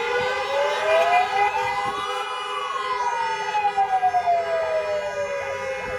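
Several emergency sirens sounding together. One slow wail rises for about two seconds and then falls away, over faster repeating yelps, with car horns held steadily underneath.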